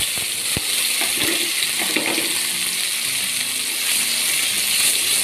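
Ground masala paste sizzling in hot oil in a kadai as it is poured in and stirred with a steel spoon: a steady frying hiss, with a few light knocks in the first second or so.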